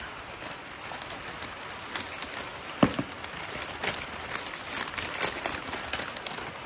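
Thin plastic packaging bags crinkling and rustling as they are handled and opened, with one sharp click or snap just under three seconds in.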